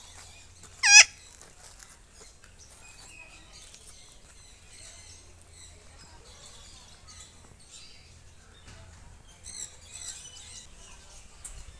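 Alexandrine parakeet giving one loud, harsh call about a second in that drops steeply in pitch. Fainter bird chirps go on throughout, with a small flurry of calls near the end.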